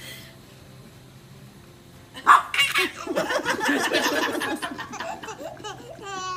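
Laughter breaking out suddenly about two seconds in, loudest at its start, then quick rapid laughing that fades out, with a short high squeal near the end.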